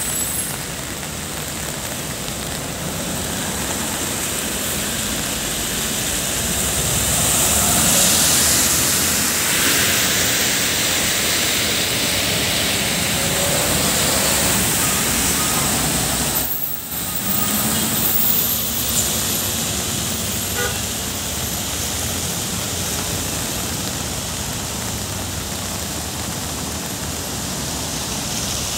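Diesel engine of a heavy BharatBenz container truck pulling slowly round a hairpin turn, with tyre hiss on the wet road and other traffic running. It grows louder around eight seconds in as the truck passes close, and the sound breaks off for a moment around seventeen seconds.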